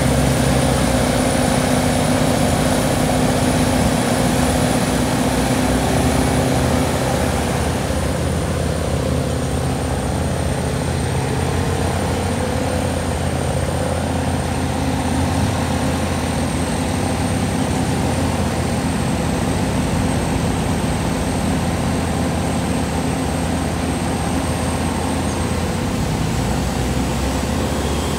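Bomag cold planer milling the asphalt off the road: its heavy diesel engine and cutting drum running steadily, with a thin high whine over a deep drone. The pitch dips a little about eight seconds in.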